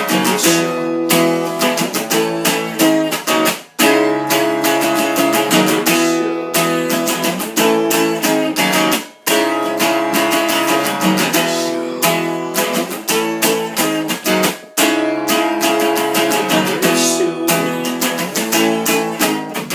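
Acoustic guitar strumming chords in a steady, driving rhythm, with two brief stops about four and nine seconds in.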